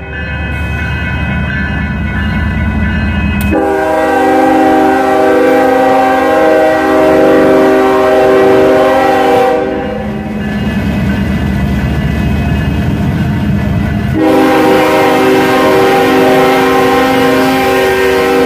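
Union Pacific diesel freight locomotives passing close, sounding their multi-chime air horn in two long, loud blasts about six and four seconds long, the first about three and a half seconds in and the second near the end. Under the horn, the engines and train run with a steady low rumble.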